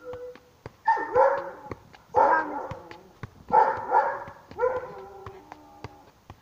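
A dog barking in about five short bouts roughly a second apart, starting about a second in, over faint taps of a football being juggled.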